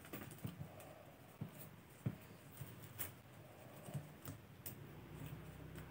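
Faint, scattered clicks and rustles of flat plastic basket wire being threaded through a loop and drawn through by hand.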